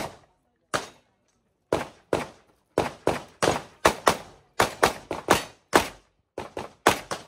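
Pistol fired in a fast string of about twenty shots, mostly in quick pairs a fraction of a second apart, with short pauses between pairs: the shooter is double-tapping each target in turn.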